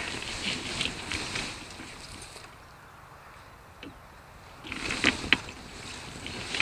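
Tall grass rustling and brushing against the low-mounted camera while the pilot moves about under the downed hang glider's wing. It eases off midway, then more rustling comes with two sharp clicks about five seconds in.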